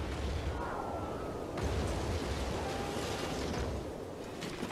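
Steady low rumbling noise with no distinct events, crossed by two faint, slightly falling whistling tones, one about a second in and a fainter one near the middle.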